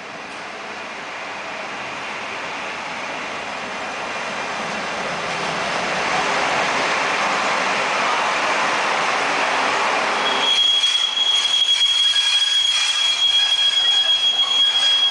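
SBB Re 421 electric locomotive approaching and passing close by, its running noise growing steadily louder. About ten seconds in the low rumble drops away as the wagons behind it roll past, with a steady high-pitched wheel squeal.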